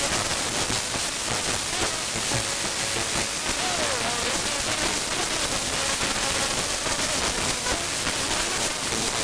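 Dense crowd noise of people clapping and singing while they dance: a loud, steady wash of hand claps with faint voices in it.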